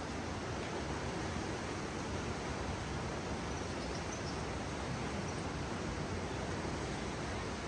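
Steady, even outdoor rushing noise, with a few faint high chirps about halfway through.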